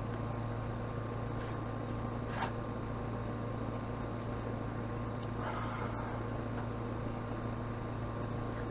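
Steady machine hum with a low drone and faint higher tones, broken by a brief click about two and a half seconds in and a short rustle a little past the middle.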